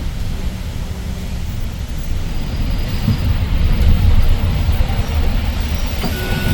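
Daewoo BS090 city bus under way, its CNG engine running with a steady low rumble of engine and road noise, a little louder from about halfway through.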